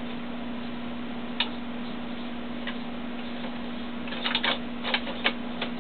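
CrustCrawler SmartArm robot arm moving under mouse control: scattered sharp clicks and ticks, a couple of single ones in the first half and a quicker cluster from about four seconds in, over a steady low hum.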